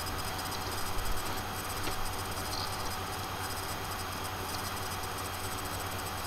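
Steady background hiss with a low electrical hum, the noise floor of a desk recording setup, with a few faint clicks.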